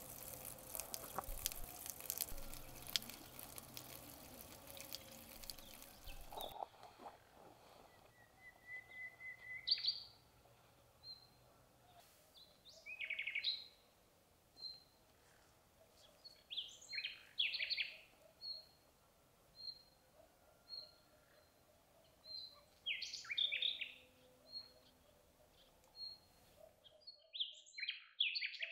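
Songbirds singing in woodland: one bird repeats a short high note about once a second, while others give brief warbling phrases. For the first few seconds there is a crackly, rustling noise full of small clicks. Near the end the sound cuts out abruptly, then the birds return.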